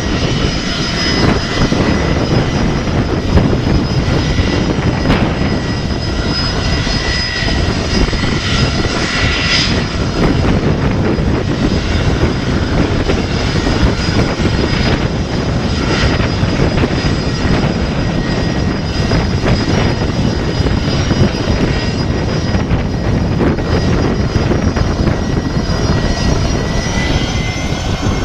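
The two Rolls-Royce Tay 611-8C turbofans of a Gulfstream G450 business jet running at low taxi power: a steady rushing noise with several high whining tones. Near the end the whine rises as the engines spool up for the takeoff roll.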